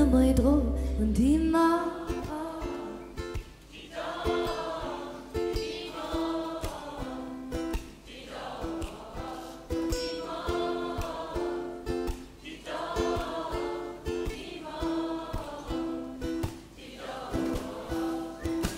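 Live pop song thinning out: the bass and lead vocal drop away about a second and a half in, leaving a crowd singing the chorus in repeated phrases over a light plucked ukulele.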